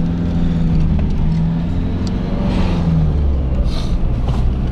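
Car engine and tyre noise heard from inside the cabin as the car pulls away and gathers speed: a steady low drone with an engine note that rises a little and then drops back around the middle.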